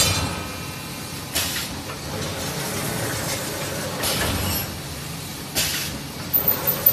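EPE foam disc-knife cutting machine running: a steady mechanical noise with three short hisses, about a second and a half, four and five and a half seconds in. Near the end a rapid, even ticking of about five a second starts up.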